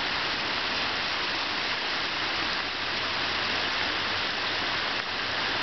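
Floodwater rushing in a steady flow, pouring straight across the land instead of through the ditch where it is meant to go.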